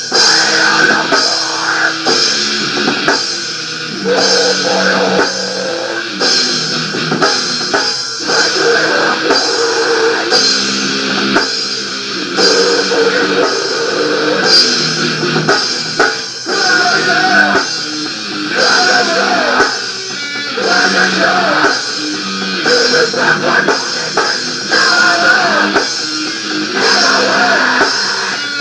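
Rock band demo recording: electric guitar and drum kit playing a hard-driving rock song.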